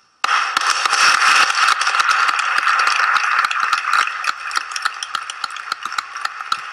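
Applause that starts abruptly as a dense patter of claps and thins toward the end into more scattered claps.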